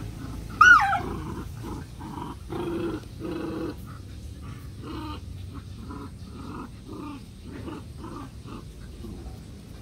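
Puppies play-fighting: a sharp, wavering yelp falling in pitch about a second in, then a long run of short repeated growls.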